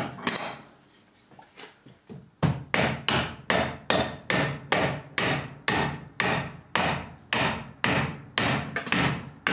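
Hammer blows on a DeLorean steering rack's pinion housing, knocking out a seized pinion bearing. One strike, a short pause with a few light taps, then a steady run of blows at about two and a half a second.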